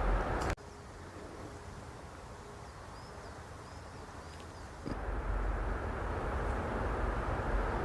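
Steady noise haze without a clear tone. It drops suddenly about half a second in to a quieter stretch with a faint thin hum and a few faint high chirps, then comes back about five seconds in.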